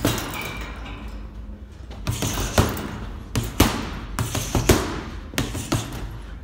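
Boxing gloves punching a hanging heavy bag: a run of sharp thuds, about nine, several landing in quick pairs.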